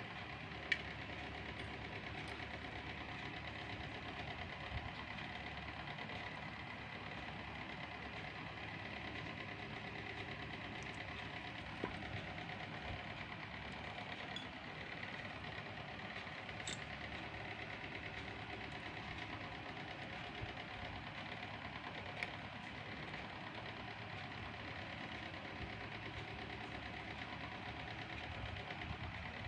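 A steady mechanical hum, with a few short faint clicks spread through it.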